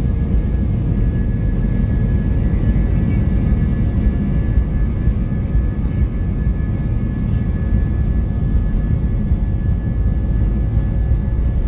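Airliner cabin noise: the steady rumble of the engines and airflow heard from a passenger seat, with a faint high steady tone over it.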